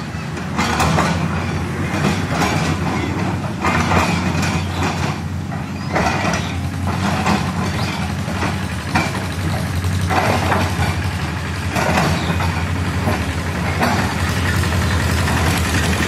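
Liugong 922D tracked excavator's diesel engine running steadily while it digs, with louder noisy bursts every few seconds as the machine works.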